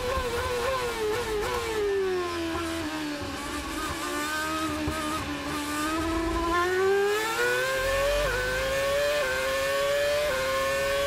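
Ferrari F138 Formula One car's 2.4-litre V8 heard from the onboard camera, braking hard for a slow corner. It drops down through the gears with a throttle blip on each downshift, and the engine note falls in steps to a low steady pitch. It then accelerates hard, the pitch climbing and dropping back sharply at three quick upshifts.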